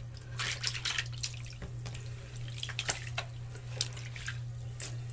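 Water splashing and dripping in a sink in small irregular splashes as a wig is moved about in a fabric-softener soak, over a steady low hum.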